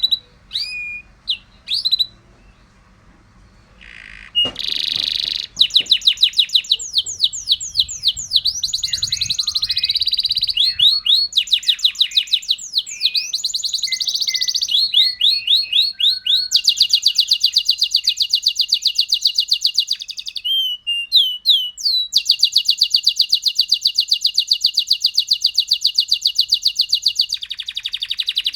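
Domestic canary singing. A few short chirps come first, then from about five seconds in a long, almost unbroken song of very fast high trills and rolls.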